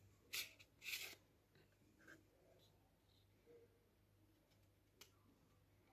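Stiff paper cards and cardboard packaging handled. Two short scraping rustles come about a third of a second and a second in, then only faint scuffs of card against fingers.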